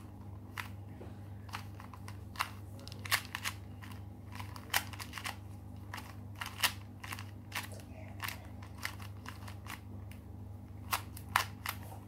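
A 2x2 plastic puzzle cube being turned rapidly by hand: irregular sharp clicks and clacks as the layers snap round, several a second, some louder than others.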